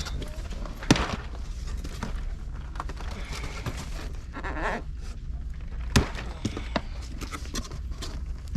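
Hot Wheels blister-carded cars and their cardboard shipping case being handled: scattered clicks and rustles, with two sharper knocks, one about a second in and another about six seconds in, over a steady low hum.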